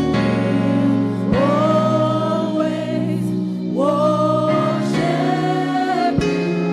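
Live gospel worship music: a voice sings long held notes, each sliding up into pitch, over steady keyboard chords and a bass line.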